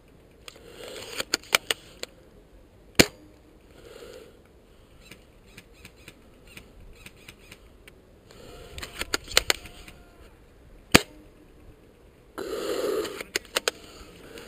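Airsoft replica guns firing: sharp single shots and short quick strings of shots, with a brief rustling hiss around some of the strings.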